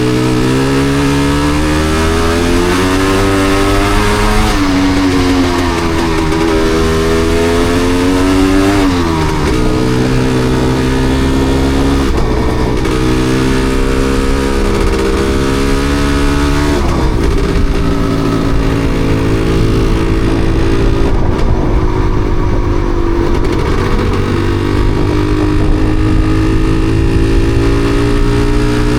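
Yamaha DT250MX single-cylinder two-stroke trail bike engine under way, its revs rising over the first few seconds, dropping about eight seconds in, then steadying with brief breaks in the note a few times. The bike has a misfire.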